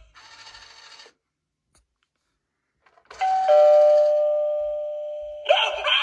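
Speaker of a Gemmy 'Dropping Spider' animated Halloween doorbell playing a two-note ding-dong chime about three seconds in, the lower note held and fading. Near the end a recorded shrieking voice effect starts.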